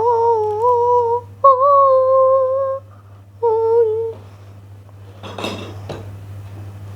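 A child humming wordlessly in long, steady held notes, three of them, the last one shorter, with a faint breathy sound a little later.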